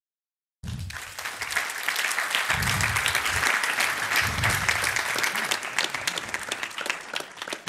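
Audience applauding, many hands clapping together, starting about half a second in and tailing off near the end.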